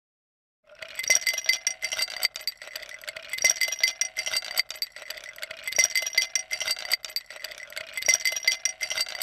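Hicon countertop ice maker dispensing crushed ice into a plastic cup: a dense clinking rattle of ice pieces that starts about a second in, over a steady hum. The rattle swells in louder spurts every two seconds or so.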